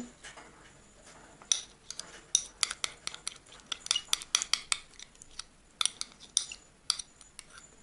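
Metal teaspoon clinking and scraping against a small glass dish while scooping mustard into a glass bowl, in a series of irregular short clinks and taps.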